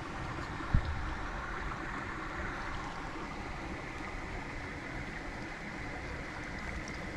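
Steady rush of flowing creek water with low wind rumble on the microphone, broken by one sharp thump about a second in.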